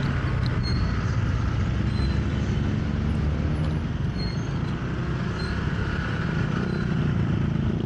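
Motorcycle running along the road, with steady low engine rumble mixed with wind and road noise.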